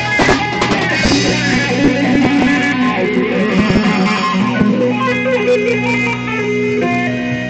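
Amplified electric guitar and a drum kit playing together in a band rehearsal, with a run of drum hits in the first second and again near four seconds in, then held guitar notes.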